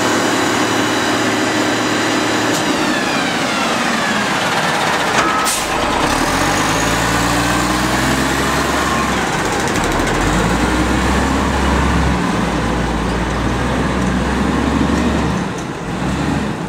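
Cummins L10 inline-six diesel of a WhiteGMC garbage truck: its whine falls in pitch a few seconds in, a short air-brake hiss comes about five seconds in, then the engine revs up again and again through the gears as the truck pulls away, fading near the end.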